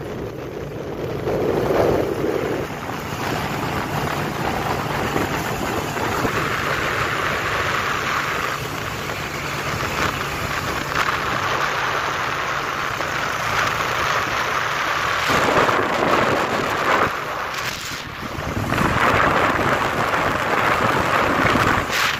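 Wind rushing over the microphone of a moving vehicle, with steady road and engine noise underneath, swelling and easing in waves.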